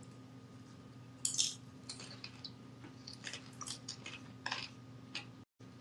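A person biting and chewing a crunchy snack close to the microphone: faint scattered crunches over a steady low electrical hum, the sound cutting out briefly near the end.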